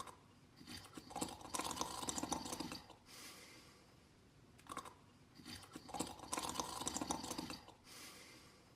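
Snoring in a slow breathing rhythm: two long, rattling snores about five seconds apart, with quieter breathy breaths and a brief click between them.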